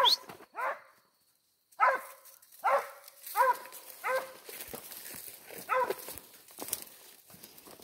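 Female hunting dog barking repeatedly, one bark about every half to three-quarters of a second, with a short silent break about a second in and fainter barks toward the end. She is baying on the trail of quarry that the hunter takes for an armadillo.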